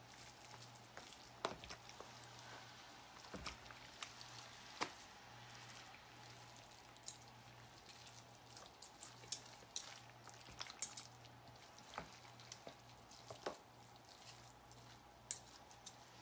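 Faint, irregular clicks of utensils and wet squishing as slow-cooked pork shoulder and beans are worked over.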